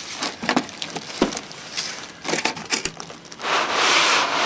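Cardboard and styrofoam packing scraping and crinkling as a boxed TV is slid out of its carton: a run of light knocks and rustles, then a longer, louder scraping rush about three and a half seconds in.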